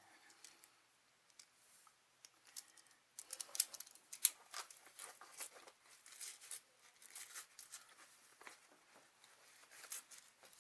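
Faint, irregular clicking and rustling of wires and plastic wire nuts being handled and pulled apart at a light-switch box, sparse at first and busier from about three seconds in.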